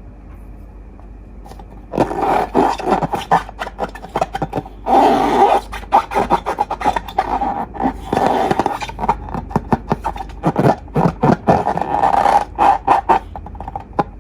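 Rubber of long balloons squeaking and scraping under handling, a rapid irregular run of rubbery squeaks that starts about two seconds in and stops near the end.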